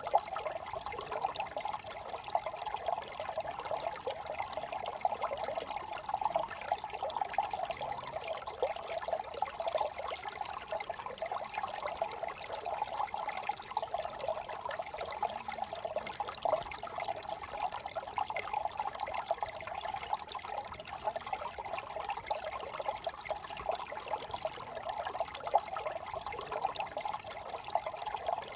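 Small brook trickling and babbling steadily over stones.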